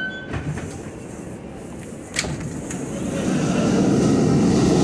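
New York City subway train noise: a rumble with a sharp clunk about two seconds in, then from about three seconds in a louder train rumble building up. A wheel squeal has just cut off at the start.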